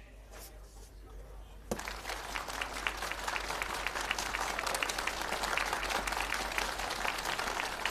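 Audience applauding, starting suddenly about two seconds in and continuing steadily.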